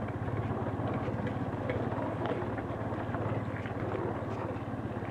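Motorcycle engine running steadily at low speed with an even low throb.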